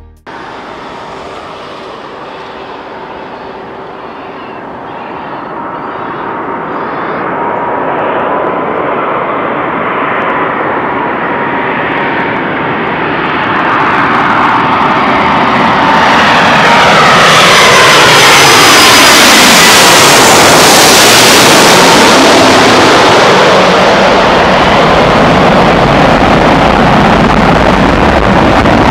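Airbus A330 MRTT tanker's twin turbofan jet engines as the aircraft approaches and passes close by. The sound builds steadily from a distant drone to very loud, and its whine slides down in pitch as it goes past about two-thirds of the way in.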